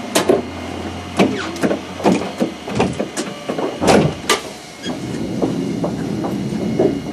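Sharp clicks and clunks at a streetcar driver's fare box in the cab, about seven in the first four and a half seconds, over the steady hum of the stopped tram.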